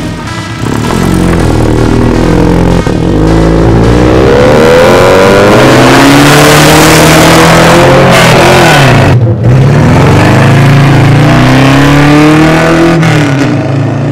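Mercedes-Benz CLK coupé doing donuts, its engine revving hard with the pitch rising and falling again and again, and its tyres squealing as they spin. The revs drop briefly about nine seconds in.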